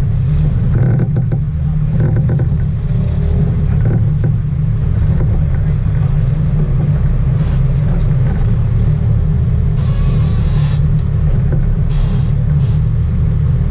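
Sport fishing boat's engines running with a steady low rumble.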